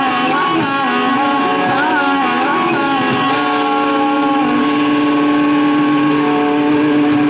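Live rock band playing, led by electric guitar with bending notes over a fast, even high-pitched beat. About three seconds in the beat drops out and a guitar chord is held, ringing out.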